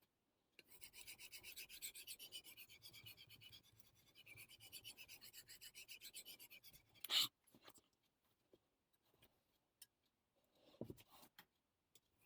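Steel knife blade rubbing over the wet 5000-grit side of a Naniwa combination Superstone in quick, even back-and-forth sharpening strokes. The strokes stop about seven seconds in with one sharp knock, followed by a few faint clicks and another knock.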